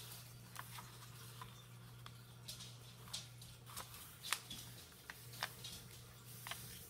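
Thin printer paper rustling and crackling as hands fold a square corner to corner into a triangle and smooth it down: a string of faint, scattered ticks and crinkles, over a low steady hum.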